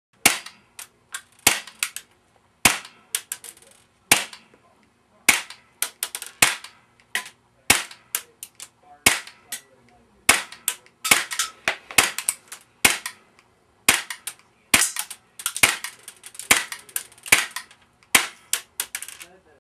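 A long series of sharp, loud cracks at an uneven pace of roughly two a second, each ringing out briefly.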